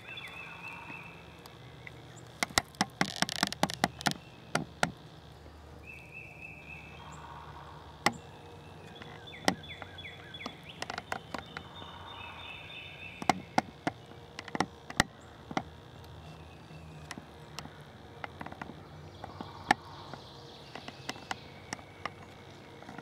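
Woodland birds giving short, repeated high chirps at intervals, over a scatter of sharp clicks and taps, with a quick flurry of clicks a few seconds in.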